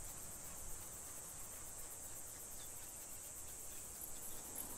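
Insects, cricket-like, chirring steadily in a high, fast, even trill.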